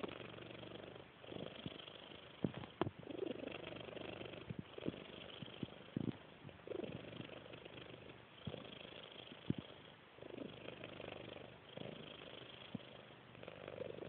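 A sleeping long-haired calico cat snoring softly, one snore with each breath about every two seconds, with a few sharp clicks in between.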